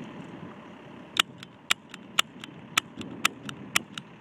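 Cap gun firing repeatedly: six sharp pops about half a second apart, starting about a second in, with fainter clicks between them.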